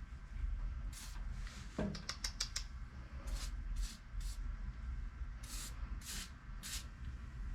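Aerosol can spraying penetrating oil onto rusted screws in short hissing bursts: a quick run of spurts about two seconds in, then single bursts every half second to a second.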